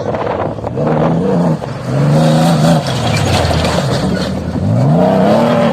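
Off-road motorcycle engine under way, its pitch dropping and climbing as the throttle is rolled off and opened again, with a sharp rise in revs near the end.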